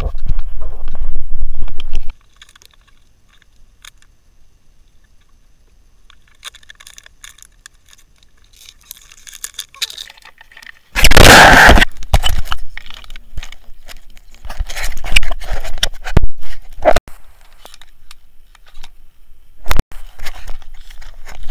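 Close handling noise: irregular rustling, scraping and clinking of gear, with a low rumble at the start, a loud rush lasting about a second near the middle, and scattered clicks and scrapes after it.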